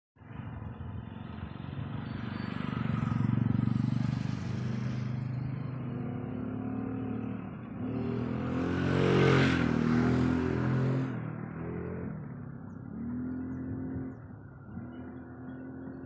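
Motor vehicle engines passing by, the engine note shifting in pitch as they go; the loudest one passes about nine to ten seconds in, then the sound eases off.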